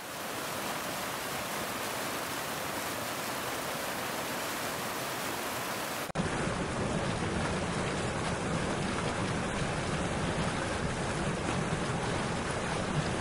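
Steady rushing noise of heavy rain and flowing floodwater. About six seconds in the noise changes abruptly, becoming a little louder and deeper.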